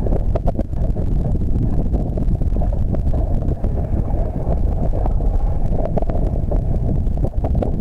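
Wind buffeting the microphone on an open boat at sea: a loud, steady low rumble with frequent crackles.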